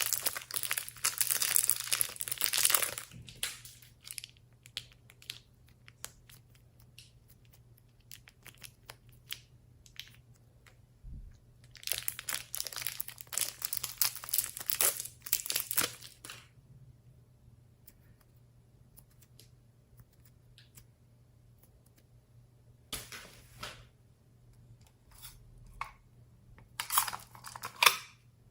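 Slime being squished and stretched by hand, crackling and popping in bursts of a few seconds with quiet pauses between.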